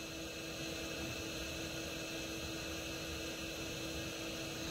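Steady electrical hum with a constant low tone under an even hiss, and no distinct knocks or clicks; the soldering iron touching up the chip's pins adds nothing that stands out.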